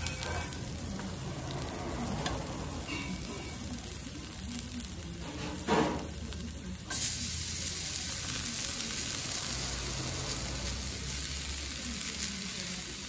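Vegetables sizzling on a hot griddle pan as pieces are set down with chopsticks; the sizzling grows louder and brighter about seven seconds in. A short knock sounds near the middle.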